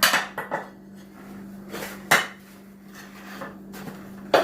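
Four sharp metallic clanks and knocks, loudest at the start and near the end: metal tools striking a mower wheel rim while prying a foam-filled tire off it.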